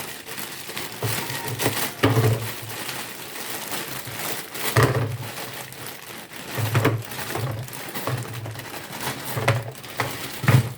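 Plastic bag of frozen broccoli crinkling and rustling as it is handled, with several dull knocks scattered irregularly throughout.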